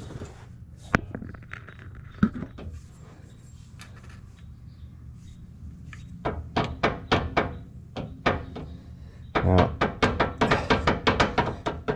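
Worn bushing in the end of a removed Jeep track bar knocking as the bar is worked back and forth by hand: a single sharp knock about a second in, then a run of quick, evenly spaced knocks from about halfway, coming faster near the end. The knocking is the play of a worn-out track bar bushing.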